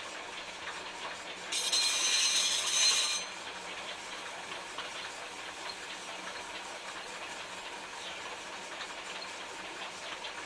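A hand tool scraping over the surface of a clay pot, faint small scratches and ticks. A loud hiss with a slight whistle cuts in about a second and a half in and lasts about a second and a half.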